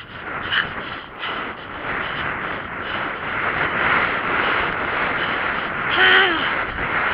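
Steady rushing wind noise on a rider-mounted camera as a horse canters along a dirt track. A short pitched call sounds about six seconds in.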